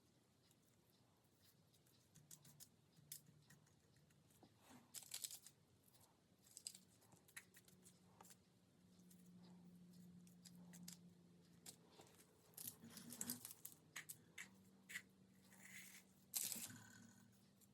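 Faint rustling, crinkling and tearing of thin gold foil sheets being handled, in short scattered bursts. A low steady hum runs underneath for much of the time.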